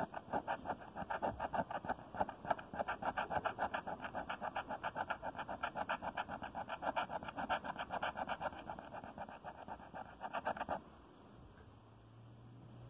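Coin scraping the latex coating off a lottery scratch-off ticket in quick back-and-forth strokes, several a second, stopping suddenly near the end.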